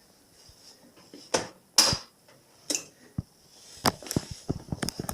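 A scatter of light clicks and knocks, as of hard objects being handled, with a short scraping burst about two seconds in. The clicks come quicker together near the end.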